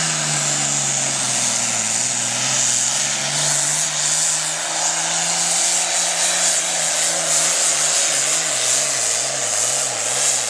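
International super farm pulling tractor's turbocharged diesel engine running flat out while dragging the sled. The engine pitch sags at the start as the load comes on, holds steady, then wavers rapidly up and down near the end.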